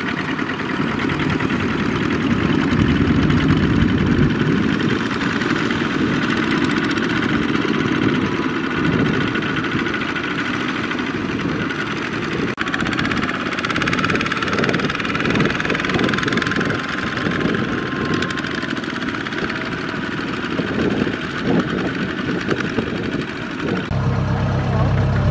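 Single-cylinder Kubota ZT155 diesel engines of several two-wheel walking tractors running under load as they pull loaded trailers through the mud. Near the end the sound changes to a steadier low hum.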